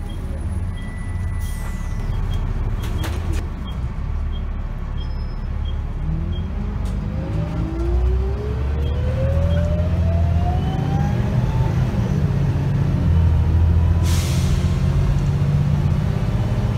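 Volvo B7RLE bus with a ZF automatic gearbox pulling away, heard from inside the saloon: a steady diesel rumble with a light ticking about twice a second at first. About halfway through, a whine from the ZF gearbox rises in pitch as the bus accelerates and the engine gets louder. Near the end there is a short burst of air hiss.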